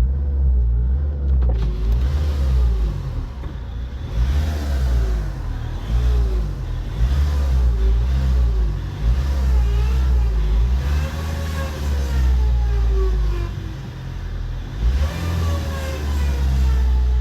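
Ford Mondeo Mk4 2.0 TDCi diesel engine running with the power steering pump whining over its low rumble, the whine wavering and sliding up and down in pitch. The noise comes from air in the power steering fluid.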